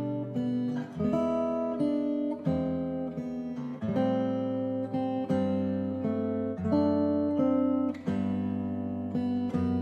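Background music of strummed acoustic guitar chords, each chord struck and left to ring before the next.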